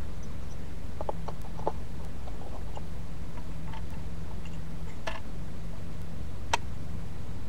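Steady low background rumble with a faint steady hum, and a few soft clicks and ticks: a small cluster about a second in, then single ones later. No rifle shot is fired.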